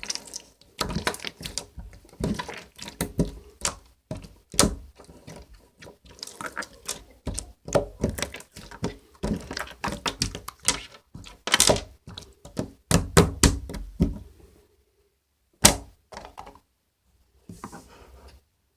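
Slime being squeezed and poked by hand, giving a rapid, irregular run of sharp clicks and pops as air pockets burst. The pops stop about fifteen seconds in, then come one loud snap and a few fainter pops near the end.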